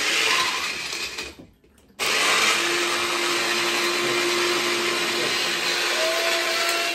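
Small personal blender running with its cup pressed down: one short burst of about a second and a half, a brief stop, then a longer steady run of about five seconds with a faint rising whine near the end.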